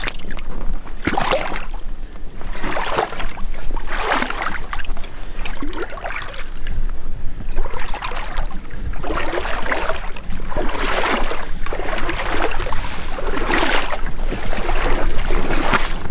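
Footsteps wading through shallow floodwater, each step a slosh and splash, about one a second, with a short pause about halfway through.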